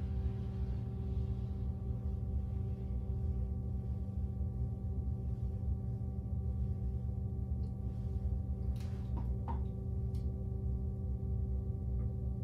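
A steady low hum made of several held tones, like a running appliance or machine in the room, with a few faint light clicks about nine to ten seconds in.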